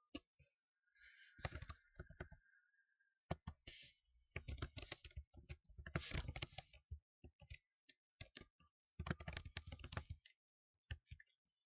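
Typing on a computer keyboard: rapid runs of keystroke clicks in several bursts, with short pauses between them.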